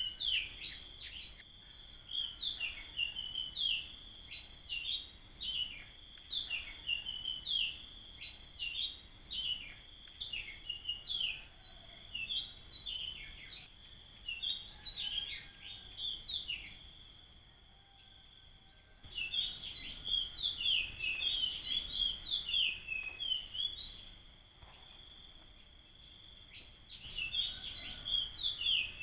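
Birds calling in rapid, high chirping notes that come in busy bursts, with two short lulls. A steady high-pitched drone runs underneath.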